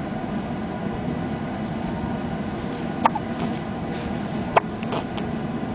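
A baby hiccuping twice, short sharp hics about a second and a half apart, over steady background noise.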